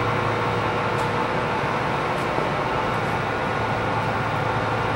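Kingston HD-2660 gap-bed engine lathe running under power: its 15 HP main motor and geared headstock give a steady hum with a constant gear whine. It stops abruptly at the very end.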